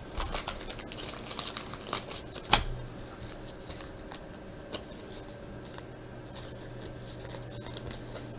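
Trading cards and a foil pack wrapper being handled: soft crinkling and rustling with scattered light taps, busiest in the first few seconds, and one sharper click about two and a half seconds in.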